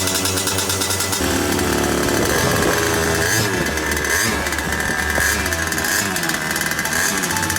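Go-kart engine running with a high, buzzing note, its revs rising and falling several times as it speeds up and backs off.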